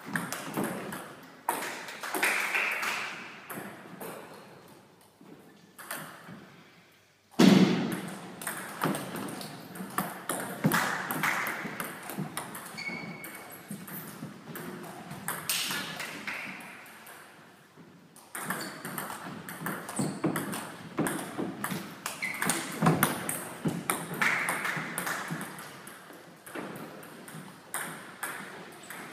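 Table tennis ball clicking back and forth between paddles and table in several rallies, with short pauses between points. A single heavy thump comes about seven seconds in.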